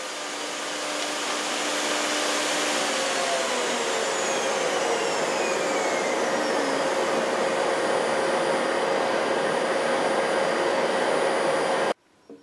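Table-mounted router with a rail-and-stile profile cutter winding down after a profile pass, its whine sliding down in pitch over several seconds. A steady rushing noise runs underneath and cuts off abruptly near the end.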